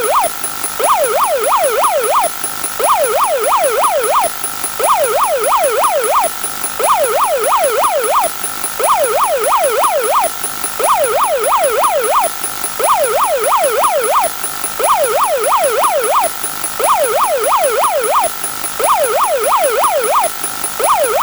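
Electronic siren sound effect in fast yelp mode: quick rising and falling wails in groups of about five, with a short break about every two seconds, over a steady tone.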